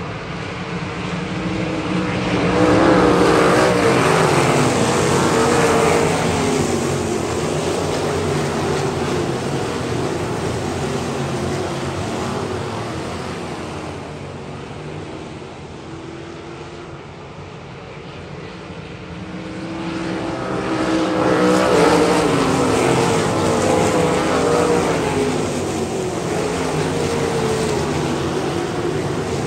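A pack of dirt-track sprint cars racing past with their V8 engines at full throttle, the pitch wavering as they go through the corners. The sound swells loudest about three seconds in and again about twenty-one seconds in, as the field comes by on successive laps, and dips in between.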